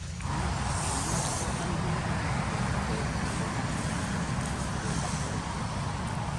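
Steady rumble and road noise of a motor vehicle running close by, swelling just after the start and then holding level.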